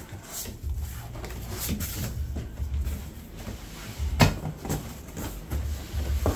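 Large cardboard shipping box being opened by hand: stiff flaps folding back and scraping, with a few sharp knocks, the loudest about four seconds in, and handling of the kraft packing paper inside.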